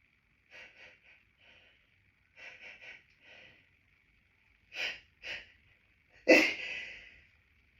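Hay fever sneezing fit: a string of short catching in-breaths, some in quick succession, building to a loud sneeze about six seconds in. The sneezing is an allergic reaction to pollen.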